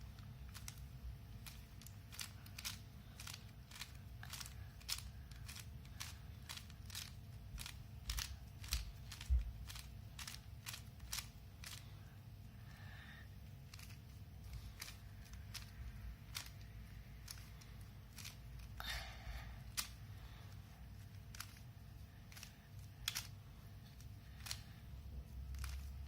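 Plastic Rubik's Cube layers being twisted by hand in quick succession: a run of irregular sharp clicks and clacks as a move sequence is worked through, over a low steady hum.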